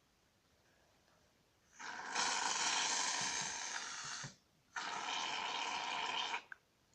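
Aerosol can of shaving foam spraying in two hissing bursts: the first starts about two seconds in and lasts about two and a half seconds, the second follows after a short gap and lasts a little under two seconds.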